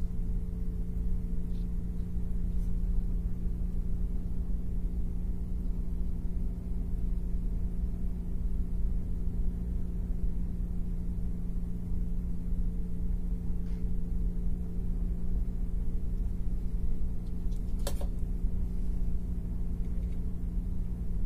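A steady low machine hum with a rumble underneath, unchanging throughout, and a single short click near the end.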